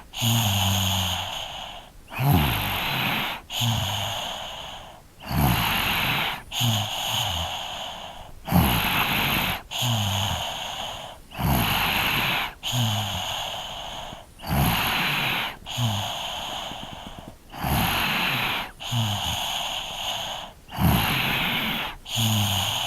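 A three-year-old child snoring in sleep: breathing in and out in a steady rhythm, about one full breath every three seconds, with a short low snoring rattle at the start of many of the breaths.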